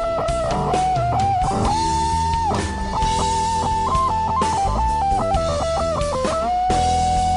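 Stratocaster-style electric guitar playing a lead line, quick wavering phrases and long held notes, the longest starting about two-thirds of the way through, over a backing of bass and drums.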